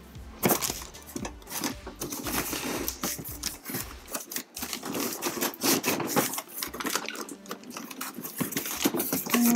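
Plastic bags of toy parts crinkling and rustling while a cardboard box is handled, with scraping and occasional knocks.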